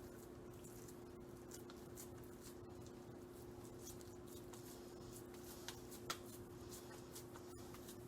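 Soft squishing and patting of raw ground beef being split and pressed into patties by hand, with faint handling clicks and two slightly louder taps about six seconds in, over a steady low hum.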